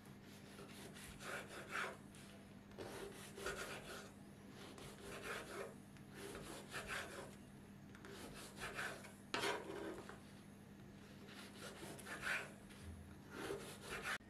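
Knife sawing through a crusty loaf of bread on a wooden cutting board: a string of short rasping strokes every second or two as the crust gives way, with one sharper knock about two-thirds through.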